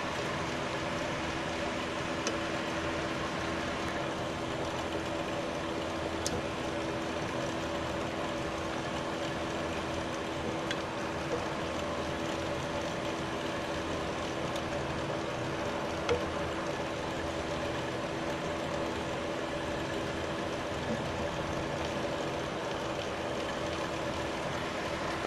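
Steady mechanical hum of a running motor with a constant low tone, and a few faint clicks.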